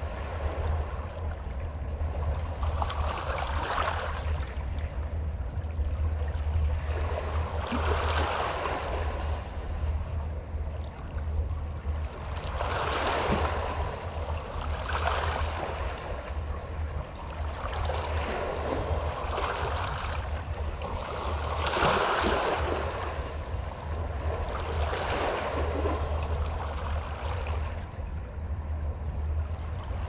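Small waves of Puget Sound lapping and washing onto the shore every few seconds, each one a short swell of splashing hiss, over a steady low rumble.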